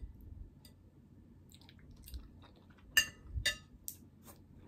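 A person chewing food close to the microphone, with a few sharp, crisp crunches about three seconds in.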